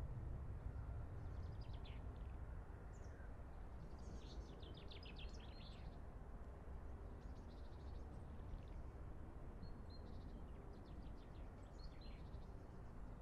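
Small songbirds singing short, high, trilling phrases every few seconds over a faint, steady low rumble of outdoor background noise.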